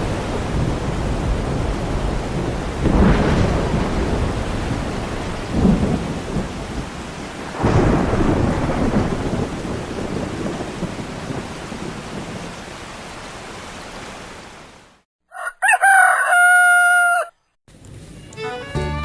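Steady rain with rolls of thunder about three, six and eight seconds in, fading out. After a brief silence, a rooster crows once, and music starts just before the end.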